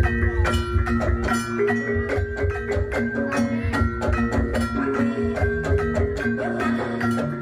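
Javanese gamelan music for jaranan: metal keyed percussion plays repeating notes over a steady pulse, with low drum beats that stop about six seconds in.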